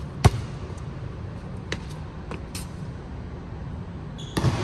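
A basketball bounces once on the hardwood court, a single sharp thud just after the start, over a steady low hum of the hall. A few faint clicks follow, then a louder thud near the end.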